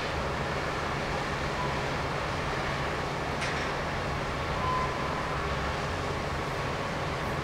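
Cruise ferry M/S Galaxy's engines and propellers running as the ship pulls away from the quay: a steady low rumble with the rush of churned water.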